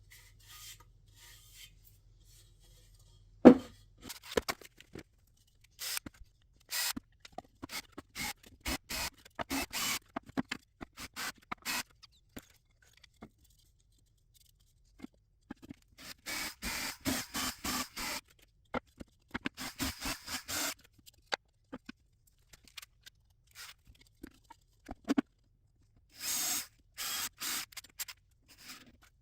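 Intermittent scraping and rubbing from hand work with wood and tools, coming in short clusters with pauses, and one sharp knock about three and a half seconds in.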